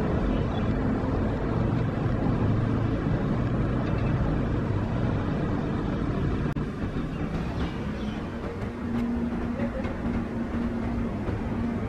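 EMD GT42ACL diesel-electric locomotive approaching with an intercity train: a steady low rumble of engine and running gear. About nine seconds in, a steady engine hum comes in on top.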